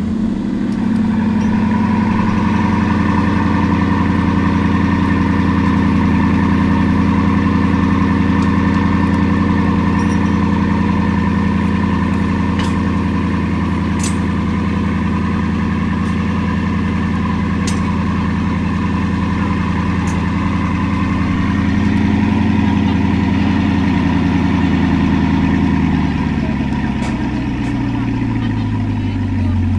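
Bugatti Chiron Super Sport's 8.0-litre quad-turbo W16 running at a raised, steady fast idle just after a cold start. Near the end the idle drops to a lower, slower note as it settles.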